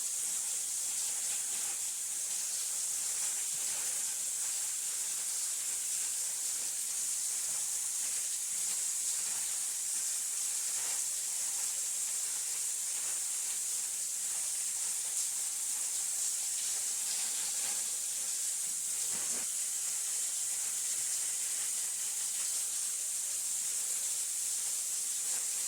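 Rushing water, a steady, even hiss with a few faint splashes.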